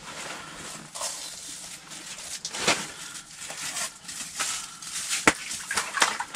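Rustling, scraping and irregular clicks of handling and movement as a burbot is released down an ice-fishing hole, with a sharp click about five seconds in.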